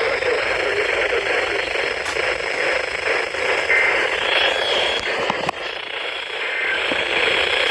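Weather radio receiver tuned to a weak, distant station, giving a steady static hiss.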